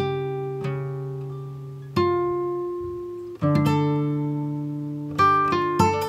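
Slow, calm acoustic guitar music: plucked chords left to ring and fade about every two seconds, then a quicker run of picked notes near the end.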